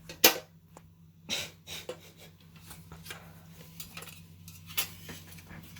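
Metal and plastic clicks and clatter from a hard drive being handled and fitted into a computer case's drive bay. One sharp click about a quarter second in is the loudest; a few more knocks follow, over a faint steady hum.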